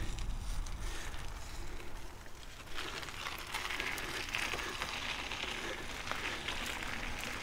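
Mountain bike rolling along a gravel path: tyres crunching over loose stones, with scattered light ticking like a coasting freewheel. The tyre noise grows louder about three seconds in.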